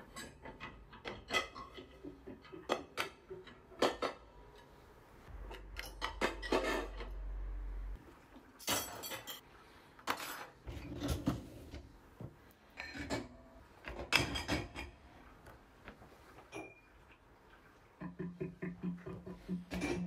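Ceramic plates and cutlery clinking and knocking against the wire racks of a dishwasher as it is loaded by hand, a string of separate clinks and clatters. Near the end, a quick rhythmic rattle as the upper rack rolls out on its rails.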